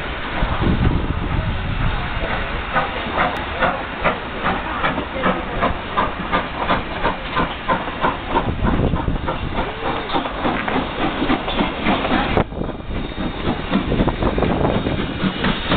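Strasburg Rail Road No. 90, a 2-10-0 Decapod steam locomotive, working slowly toward the listener. Its exhaust chuffs in a steady beat of about two to three a second over the hiss of escaping steam.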